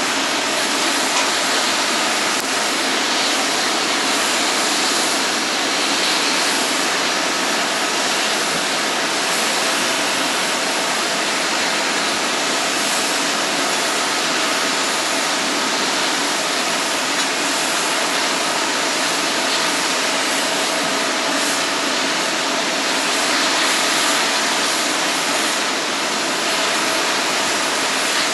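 Airliner jet engines running on the airfield: a steady, even roar with a faint steady whine over it.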